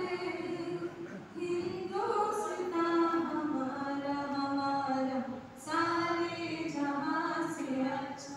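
A group of students, young women and men, singing a song together into a microphone, in long held phrases with short breaks about a second in and again about five and a half seconds in.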